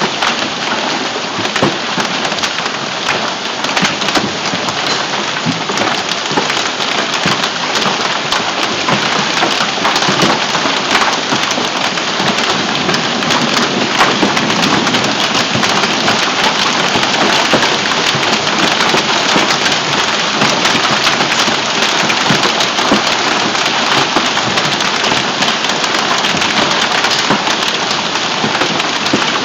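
Heavy hail and rain falling hard, a dense steady hiss dotted with countless sharp impacts.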